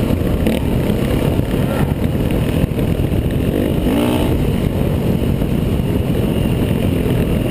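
Dirt bike engine running under way on a gravel trail, buffeted by wind on the bike-mounted microphone, with a short rise in engine pitch about halfway through.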